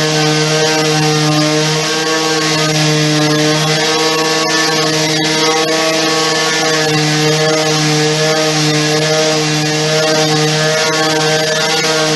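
Electric sander running steadily, its motor giving a constant hum over the hiss of abrasive working on paint and filler.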